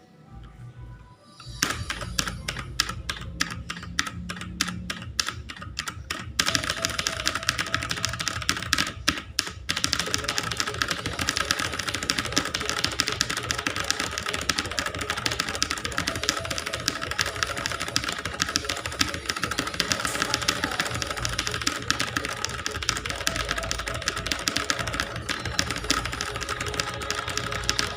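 Fast, continuous typing on a clicky computer keyboard. It starts about a second and a half in, gets denser around six seconds, and has a brief pause near ten seconds.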